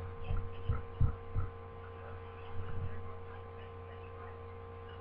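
Steady electrical hum, with a few soft low thumps in the first second and a half.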